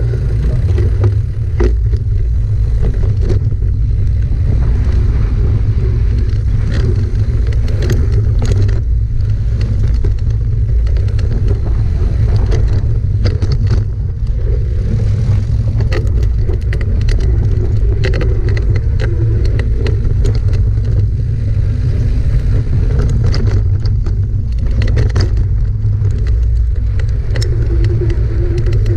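Wind buffeting the action camera's microphone on a fast mountain-bike descent, a steady low rumble, with tyres crunching over loose dirt and gravel and the bike rattling in many sharp clicks over rocks.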